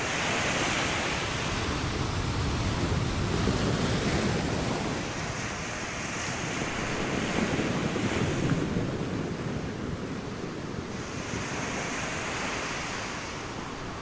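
Gentle surf on a sandy beach: small waves breaking and washing up the sand, the hiss swelling and easing in slow surges every several seconds over a low rumble.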